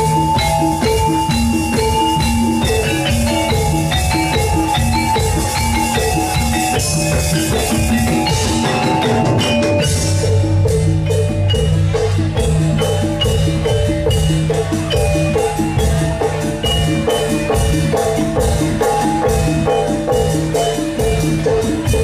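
Javanese gamelan music for a jathilan dance: metallophones play a repeating pitched melody over hand-drum strokes. About halfway through, the percussion settles into a denser, steady beat.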